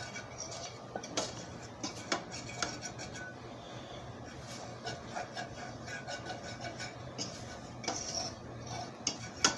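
A metal fork scraping and clinking against a stainless steel skillet while stirring flour into chopped onions, browning it for a gravy. Irregular light taps and scrapes.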